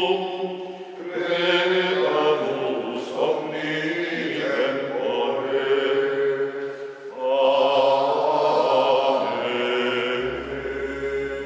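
Sacred vocal chant with sustained sung notes moving slowly in pitch, laid as background music; a low bass note comes in near the end.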